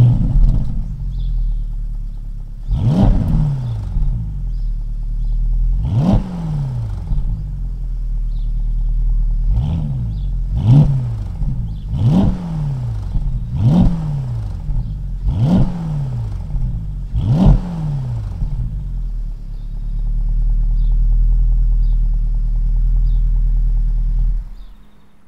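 Porsche Panamera GTS twin-turbo V8 starting with a loud flare, then revved in eight short throttle blips, each rising and falling in pitch, then idling steadily before it is switched off near the end. Its exhaust flaps are held permanently open by an add-on module, and the H-pipe's exhaust-distribution flap is wired open.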